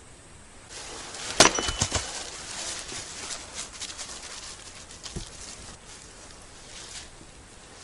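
Hatchet splitting firewood on a chopping block: one sharp strike with a few splintering cracks about a second and a half in, then light crackling and rustling, and a duller knock of wood about five seconds in.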